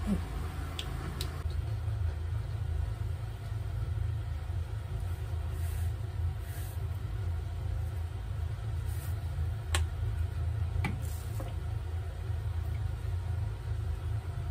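A steady low rumble, with a few light clicks and taps of kitchenware: two about a second in and two more around ten seconds in.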